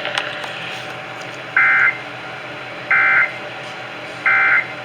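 Emergency Alert System end-of-message data bursts over a radio: three short buzzy warbling bursts about a second and a half apart, over a steady hiss, marking the end of the alert.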